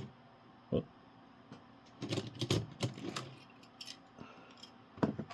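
Light clicks and rattles of die-cast toy cars and plastic track parts being handled while a race is reset, in a quick run about two seconds in and a few single clicks near the end.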